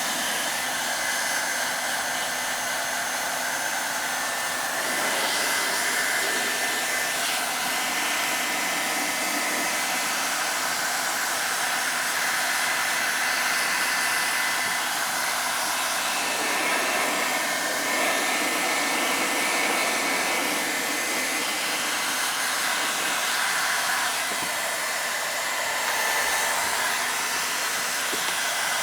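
Electric hot-air heat gun running: a steady rush of blown air with a faint motor whine, the level and tone shifting a little now and then.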